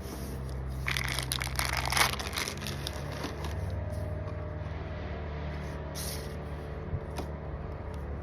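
Packaging rustling and crinkling with scrapes and clicks as items are handled and unpacked, busiest in the first few seconds, over a steady low hum.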